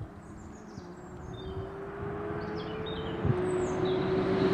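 McLaren Artura test car's 3.0-litre twin-turbo V6 heard at a distance, climbing slowly in pitch and growing louder as it approaches. About three seconds in, a short crack and a drop in pitch mark a gear change before the note keeps building.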